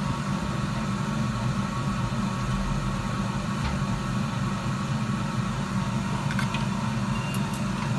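Steady machine hum, like a fan or small motor running, with several steady tones in it. A few faint ticks come near the end.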